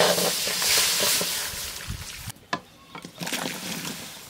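Water poured from a clay jug into an empty iron karahi, splashing steadily and stopping abruptly about two seconds in. Then a knock and a softer splash as cut drumstick pieces are tipped into the water from a clay bowl.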